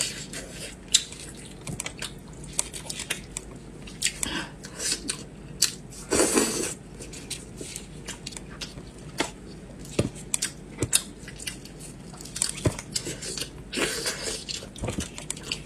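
Close-up mukbang eating sounds: braised pork being bitten, chewed and torn from a big bone by hand, in irregular wet clicks and smacks, with one longer burst about six seconds in.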